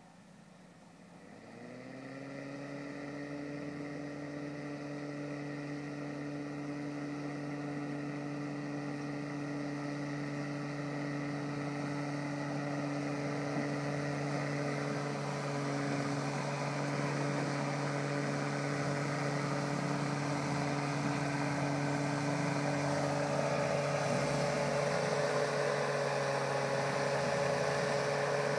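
VW Syncro van's engine crawling over a rutted dirt track: its revs rise about a second and a half in, then hold a steady low note that grows louder as the van approaches.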